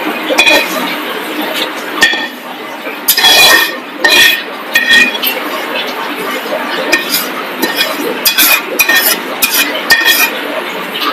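Metal slotted spatula scraping and clinking against a wok and a metal plate as fried flattened rice (chire) is scraped out. Irregular sharp clinks with a short metallic ring, the loudest a few seconds in.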